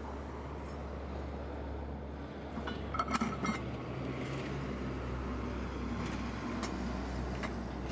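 A few sharp metallic clinks about three seconds in, as the steel drive pin is dropped into a metal pail, with a couple of lighter clicks near the end. A steady low rumble runs underneath.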